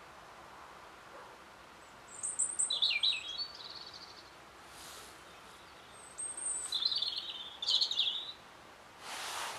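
European robin singing: three short phrases of high, thin warbling notes with pauses between them. A brief rush of noise comes near the end.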